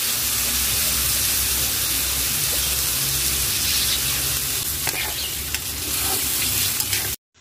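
Pork ribs and tomato sizzling in hot oil in a metal wok, with a few scrapes and clicks of a spatula stirring them about two-thirds of the way through. The sizzle cuts off suddenly just before the end.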